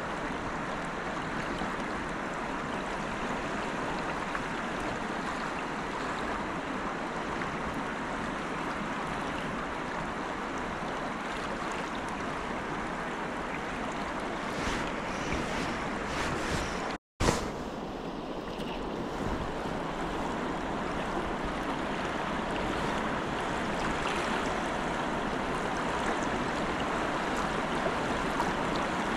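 Fast-flowing river running high after rain: a steady, even rush of water. The sound drops out for a moment just over halfway through.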